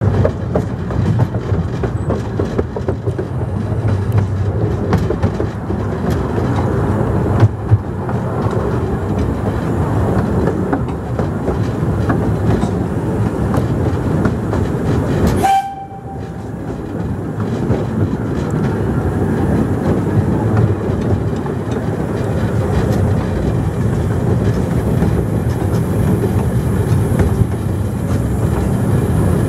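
Miniature steam train on 12¼-inch-gauge track heard from a carriage in motion: a steady rumble of running noise with the rattle and clicking of wheels over the track. The sound dips briefly about halfway, then carries on.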